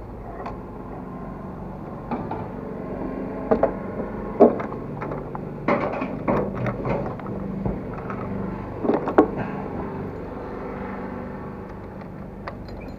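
Petrol being pumped into a motorcycle's fuel tank: a steady low hum from the fuel dispenser, with scattered clicks and knocks, the loudest around the middle.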